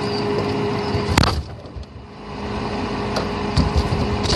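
A freezer lid shutting with a sharp knock about a second in, then the freezer's steady hum, muffled as heard from inside the closed freezer, with a few low thuds near the end.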